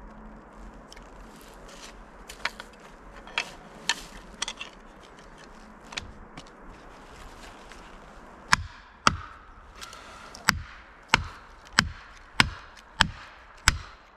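An axe chopping into the stump of a hung-up tree: a few light knocks, then past the middle eight heavy blows at a steady pace, about one every 0.6 s.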